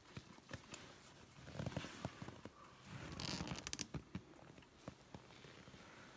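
Faint rustling and handling noise of a person working in snow, with scattered small clicks and a short scratchy, zip-like burst a little after three seconds in.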